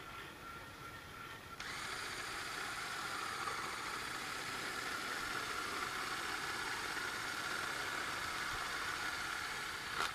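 Resistance micro-drill running as its fine needle drills into a beech trunk: a steady mechanical whine that starts about one and a half seconds in and cuts off abruptly near the end. It is a decay test of the wood inside a trunk colonised by the hoof fungus Fomes fomentarius.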